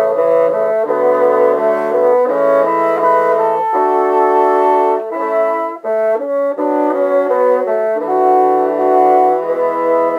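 Four bassoon parts, all overdubbed by one player, playing a slow melody in harmony with held notes that change every second or so. It was recorded through an iPad's built-in microphone.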